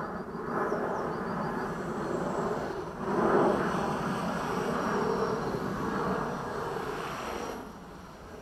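Align T-Rex 500 radio-controlled helicopter in flight: a steady whir of rotor blades and motor that swells about three seconds in and drops away near the end.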